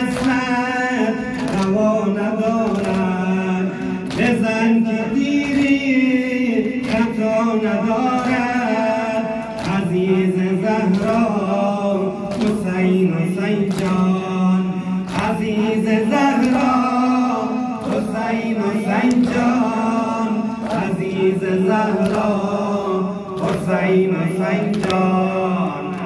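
Men's voices chanting a Shia mourning lament (noha) in long, drawn-out notes, over rhythmic chest-beating (matam): a sharp slap of hands on chests about once a second.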